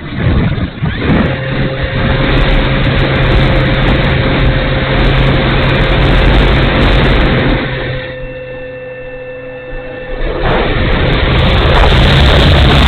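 Wind rushing over the wing-mounted camera of a HobbyKing 800 mm Hawker Tempest electric RC warbird in flight, with the steady whine of its motor and propeller underneath. The sound is loud, eases for a couple of seconds about two-thirds through, then comes back stronger.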